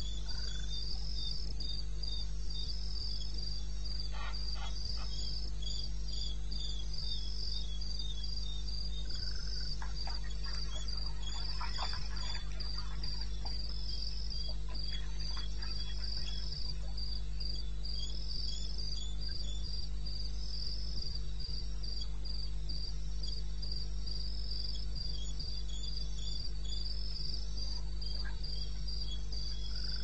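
Crickets chirping steadily, a fast, even, high-pitched pulsing that never stops, over a steady low hum.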